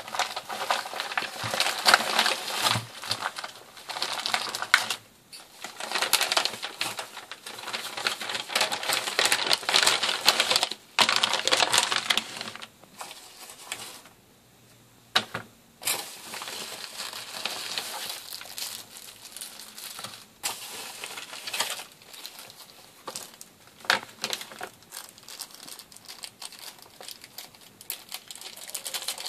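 Plastic packaging crinkling and rustling as a plastic mailer and bagged electronic parts are handled and unwrapped, most heavily during the first twelve seconds. There is a short lull about midway, then lighter rustling with a few sharp clicks.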